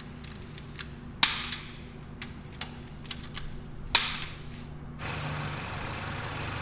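Click-type torque wrench tightening wheel bolts: two sharp clicks about three seconds apart, each as the wrench breaks over at its set torque, with a few fainter ticks between them.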